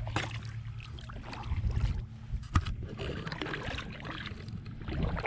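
Kayak paddle strokes splashing and dripping in the water over a steady low rumble, with one sharp knock about two and a half seconds in.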